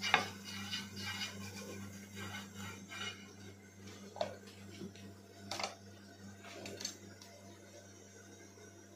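Light kitchen clatter: a silicone basting brush spreading oil over an iron tawa with a run of small scrapes and taps, then a few separate sharp clicks of utensils being handled.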